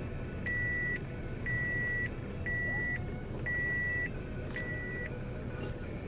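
Electronic warning beeper sounding evenly, five half-second beeps about a second apart, stopping about five seconds in. Under it is the steady low rumble of a vehicle.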